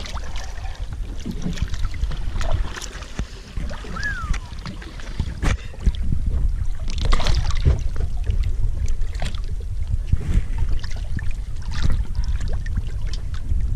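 Wind rumbling on the microphone aboard a fishing boat at sea, with scattered knocks and a short falling whistle about four seconds in.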